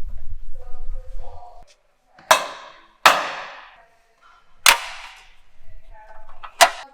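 Magnets snapping onto a ribbed steel shop wall to hold up a sign: four sharp clacks, irregularly spaced, each with a short ring after it.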